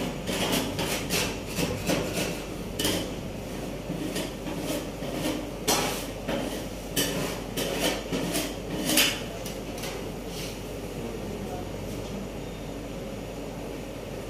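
Metal spatula knocking and scraping against the steel cold plate of a rolled ice cream machine as the mixture is chopped and spread. The clacks come irregularly, several a second, and die away about ten seconds in.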